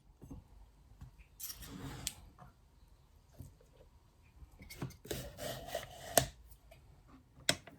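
Faint kitchen handling sounds: food and utensils rubbing and scraping, with a few sharp clicks and knocks.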